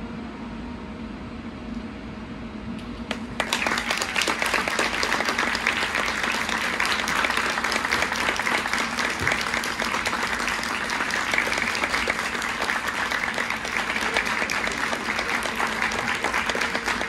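Audience applause in a school gymnasium: after a quieter first three seconds, clapping starts suddenly and continues steadily.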